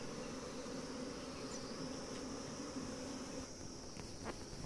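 Honeybees buzzing over an open wooden hive, a dense steady hum that drops away about three and a half seconds in. A steady high-pitched whine runs underneath, with a couple of faint clicks near the end.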